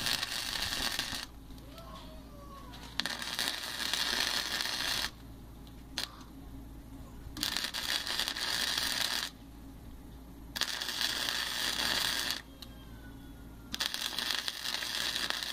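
Wire-feed welder arc crackling in five bursts of about two seconds each, with short pauses between, as expanded steel mesh is welded onto a frame.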